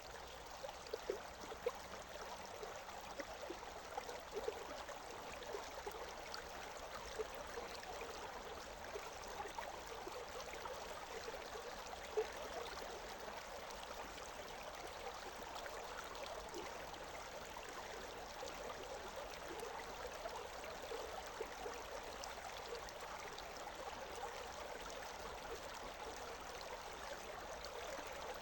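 Stream water running steadily, with many small splashes and gurgles through it.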